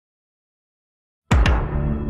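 Complete silence for just over a second, then a music sting: a deep drum hit struck twice in quick succession, leaving a held chord that slowly fades.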